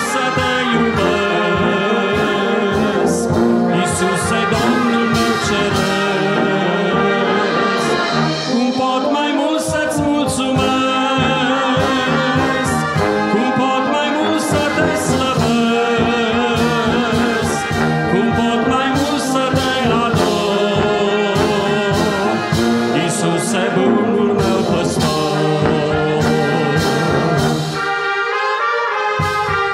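Brass band of trumpets, trombones, horns and tubas playing a slow hymn tune together. The low bass notes drop out briefly near the end.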